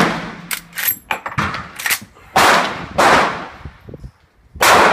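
Gunshots at a firing range: two loud reports about two seconds apart, each with a short echoing tail, with smaller clicks and knocks between them.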